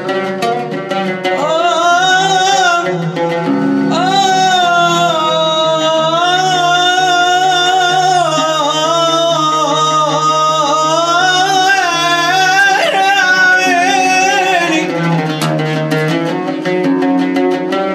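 A male munshid singing a nasheed in long, ornamented, sliding phrases over a low sustained drone and plucked-string accompaniment. The voice stops about three seconds before the end, and the plucked strings carry on alone.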